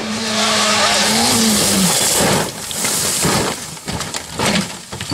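Rally car engine held at high revs over a loud hiss of spraying gravel and sliding tyres, its note wavering as the car goes off the road. After that come a series of irregular knocks and clattering noises.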